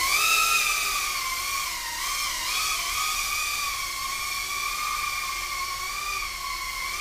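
Brushless motors of a King Kong ET100 100mm micro quadcopter with enclosed props in flight: a steady high whine that wavers a little in pitch as the throttle changes.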